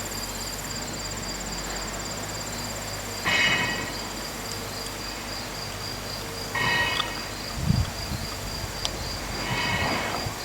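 Late-summer insect chorus of crickets and katydids trilling steadily at two high pitches. Three times, about three seconds apart, a short call with several pitched tones sounds over it.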